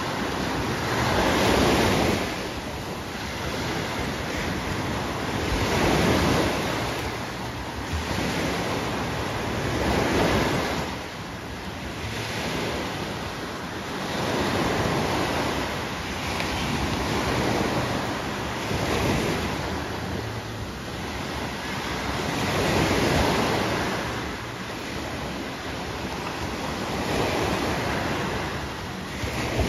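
Sea surf: small waves breaking and washing up the shore, each swelling up and easing off, with a new surge about every four to five seconds.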